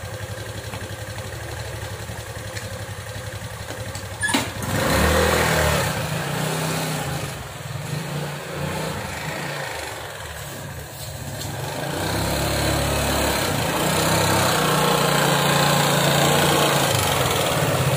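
Small motor scooter engine idling, then, after a sharp click about four seconds in, revved and ridden, its pitch rising and falling. It grows louder and steadier as the scooter rolls in close near the end.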